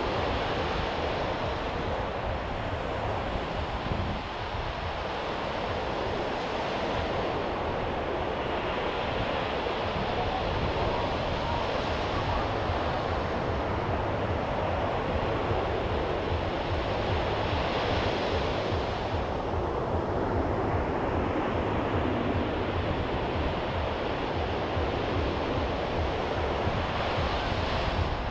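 Ocean surf breaking on a sandy beach: a steady wash of waves that swells every few seconds as breakers come in, with wind rumbling on the microphone.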